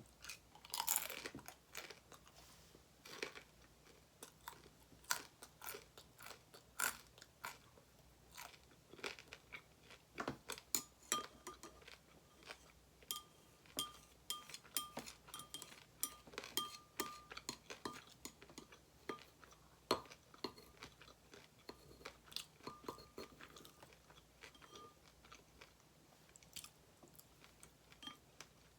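Close-miked chewing and crunching of food: a long run of irregular crisp crunches and bites.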